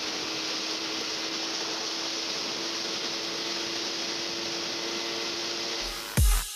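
Steady wind rush and road noise of a motorcycle cruising at highway speed, with the steady hum of a Yamaha RXZ 135's two-stroke single-cylinder engine held at constant revs. Near the end, electronic dance music with a heavy beat cuts in.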